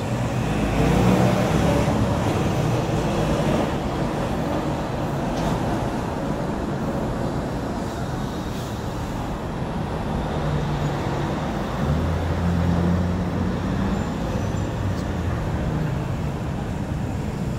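Steady road-traffic and vehicle-engine noise, with a low engine hum that swells and fades, loudest a little past the middle.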